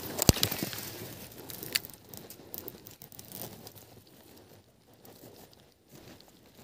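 A sharp click, then rustling and crinkling that dies away after about two seconds, followed by faint scattered ticks.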